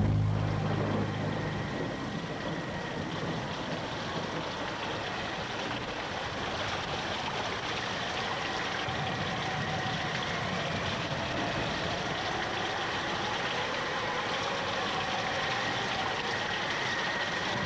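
Steady rushing of water, an even noise without rhythm.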